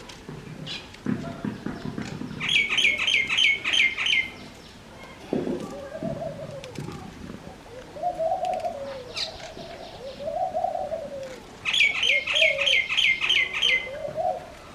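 Fantail pigeons cooing in a run of about six low, arching coos. Twice, a small bird breaks in with a quick series of high, sharp chirps. There are also a couple of brief low flurries of wing flapping.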